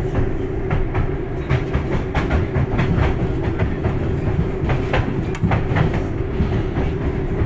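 Inside a moving 2016-built MTTA tram: a steady running rumble with a constant hum, and repeated irregular clacks of the wheels over rail joints and track.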